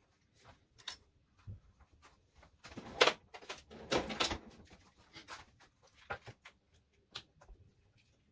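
Scattered clicks and knocks of tools and hardware being handled, with a louder clatter about three to four seconds in.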